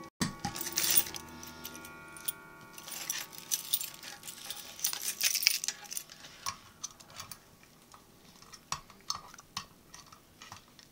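A bunch of keys jangling and clinking, with ringing metal tones and scattered clicks and rattles as a key works the lock of a fire alarm pull station.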